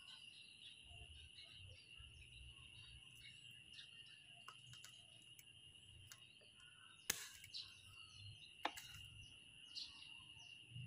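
Bypass pruning shears snipping twigs off a bonsai: two sharp snips about seven seconds in and again a second and a half later, with faint small ticks and rustles of handling leaves. A steady high-pitched tone runs underneath.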